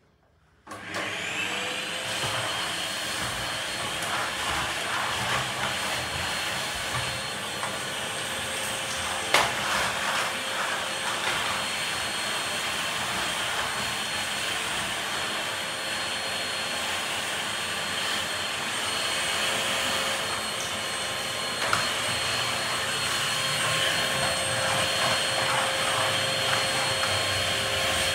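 Canister vacuum cleaner switched on about a second in. Its motor whine rises quickly to speed, then runs steadily as the nozzle is worked over a tiled floor. Two sharp knocks come through, one near the middle and one later.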